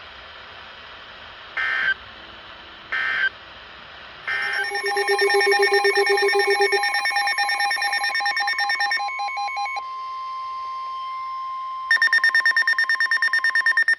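Emergency Alert System data bursts: two short squawks about a second and a half apart. Then a weather-radio alert comes in, with a steady alarm tone just above 1 kHz, the NOAA Weather Radio warning tone, under several pulsing electronic alarm beeps. Near the end a fast, loud pulsing beep joins them.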